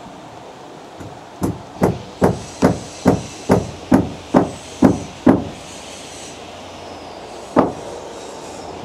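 Hammer blows, about ten in a quick steady run at a little over two a second, then one more blow a couple of seconds later.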